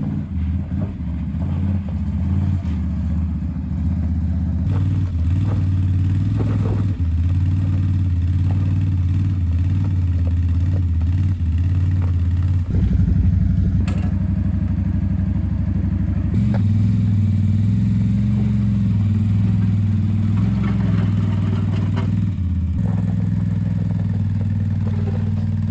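An engine running steadily, its speed shifting a few times, with a few light clanks.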